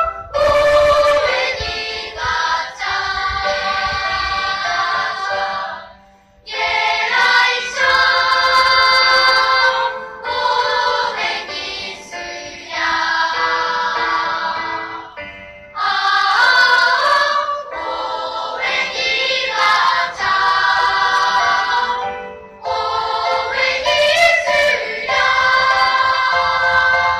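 Children's choir singing a song in high voices, phrase after phrase with short breaks between lines and a clear pause about six seconds in.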